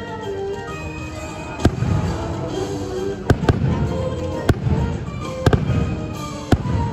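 Fireworks bursting in about seven sharp bangs, some coming in quick pairs, each followed by a low rumble, over the show's music.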